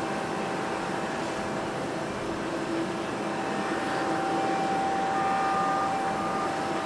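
Rolls-Royce Trent XWB jet engines of an Airbus A350-900 running, a rushing noise with a steady whine that grows stronger partway through, and a second higher tone coming and going near the end.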